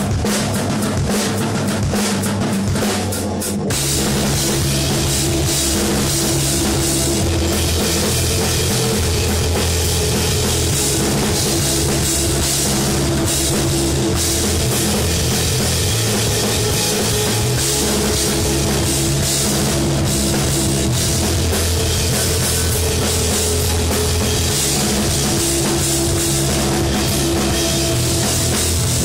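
Post-rock band playing live, instrumental: drums with a sparser backing for the first few seconds, then the full band comes in loud with crashing cymbals about four seconds in and carries on steadily.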